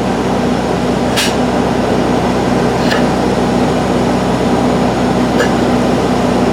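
Steady drone of the polyurethane foam-injection machinery running while a sunken slab is being raised, with a few sharp clicks.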